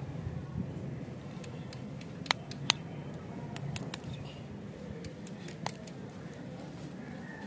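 Handling of a wrapped stick lollipop: a few sharp clicks and small crinkles, two louder clicks close together about two and a half seconds in and another near six seconds, over a steady low background noise.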